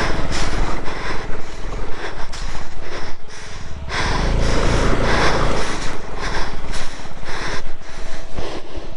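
Motorcycle engine working hard on a rough off-road track, running with a fast low pulse under a rough noise, and getting louder for a couple of seconds near the middle.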